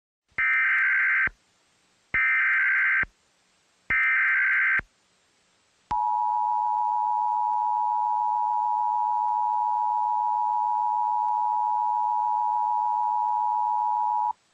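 Emergency Alert System header: three short bursts of digital data tones, about a second each, followed by the two-tone EAS attention signal, a steady piercing pair of tones held for about eight seconds and then cut off.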